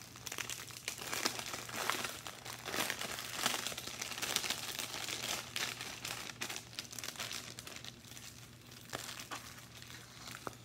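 Clear plastic packaging bags crinkling as they are handled, a run of quick crackles that is busiest for the first several seconds and thins out toward the end.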